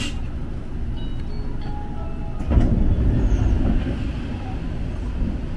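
KRL Commuter Line electric train running with a steady low rumble. About two and a half seconds in comes a sharp clank, and the rumble grows louder for a second or so after it.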